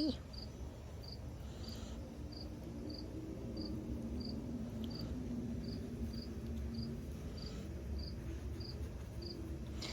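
A cricket chirping at a steady rate, about three short high chirps every two seconds, over a faint low hum.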